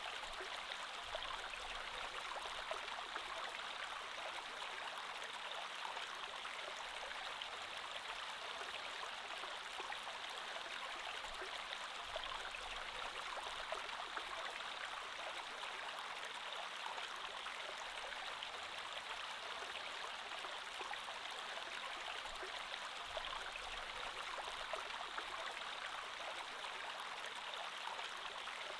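A creek flowing: a steady, even rush of water that does not change.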